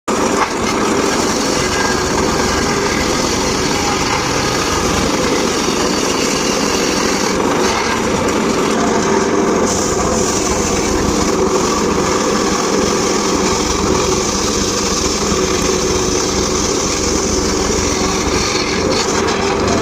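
Homemade circular saw rig running steadily while sawing sengon laut (Falcataria) timber, a loud continuous machine sound with the blade's hiss.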